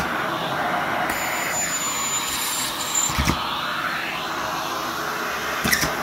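Canister vacuum cleaner running with its bare hose end drawn over carpet: a steady rush of suction whose pitch rises and falls a few times. Two short knocks come through, one about halfway and one near the end.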